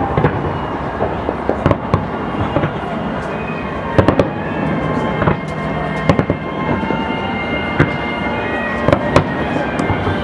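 Aerial fireworks display: shells bursting in many sharp bangs, several coming in quick pairs, over a constant background din.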